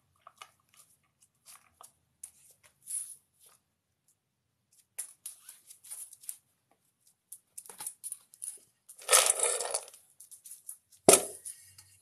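Wire fox terrier crunching dry kibble from a stainless steel bowl, with scattered small crunches. Near the end come two louder sounds: a rattle of about a second, then a sharp clank as the metal food bowl is handled.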